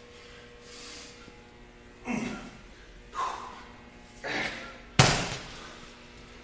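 A man's forceful breaths under heavy exertion, three sharp huffs about a second apart, then one hard thud about five seconds in as the 50-pound medicine ball hits the floor.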